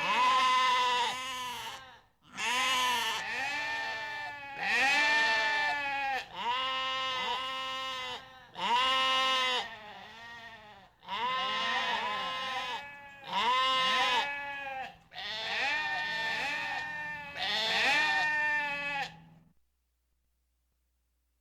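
Several goats bleating, one drawn-out wavering call after another, often overlapping. The calls stop near the end.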